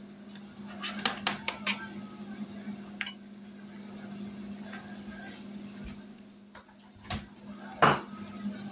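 A utensil clicking and scraping against a nonstick skillet and a plate as fried potatoes are scooped out: a quick run of clicks about a second in, single knocks around three and seven seconds, and the loudest clatter near the end.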